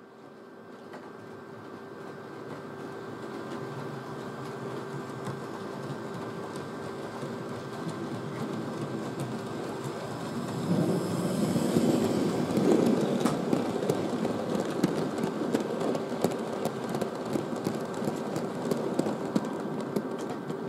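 Model railway locomotive (a model of SR USA-class 0-6-0T No.72) running with its goods wagons: a steady motor hum and wheel rattle on the track. It grows louder as the train approaches and is loudest as it passes close, about eleven to thirteen seconds in, with sharp clicks over the rail joints.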